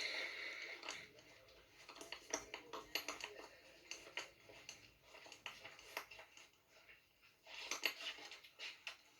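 Faint, irregular clicks and clatter of small hard objects being handled, like cutlery or dishes, with a short hiss at the start and a busier cluster of clicks about eight seconds in.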